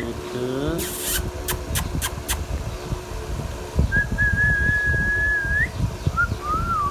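A long, steady whistled note that lifts in pitch at its end, then a short rising-and-falling whistle near the end. Earlier, about half a second in, there is a short rising call, then a brief rush of noise and a few sharp clicks.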